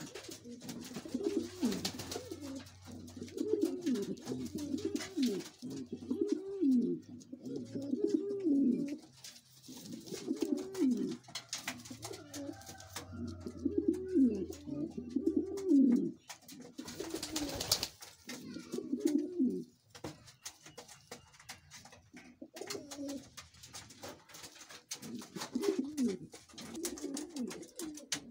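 King pigeons cooing in a loft, one coo phrase after another with a short lull about two-thirds through. Light scattered clicks and one brief loud rustle about two-thirds through sound over the cooing.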